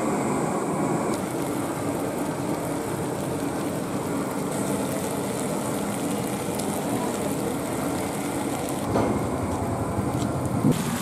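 Micro eels and lemongrass frying in a wok over a portable gas stove: steady sizzling with the burner's rumble underneath, and a wooden spatula stirring through the pan.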